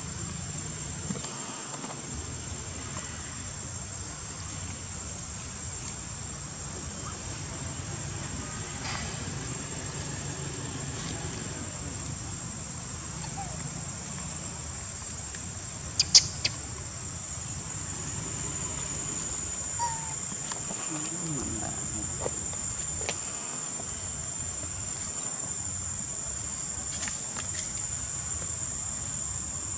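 Steady high-pitched drone of insects, growing a little louder in the second half. A couple of sharp clicks, the loudest sounds, come about sixteen seconds in.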